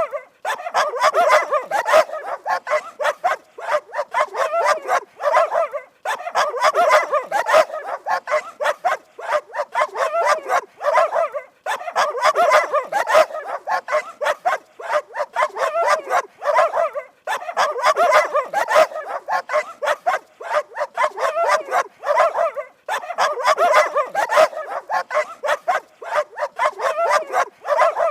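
Dog barking rapidly and continuously in runs of several seconds, with short pauses about every five to six seconds.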